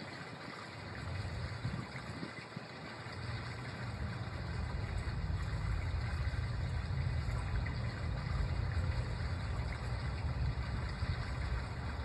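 Outdoor park ambience: a steady hiss, with a low rumble that grows louder about three seconds in and holds.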